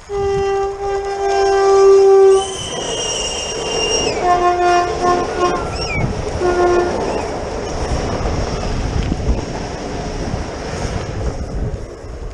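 Renfe class 447 electric commuter train sounding its horn as it passes: a long, loud blast, then several short blasts. The rumble and clickety-clack of the passing train run on after them.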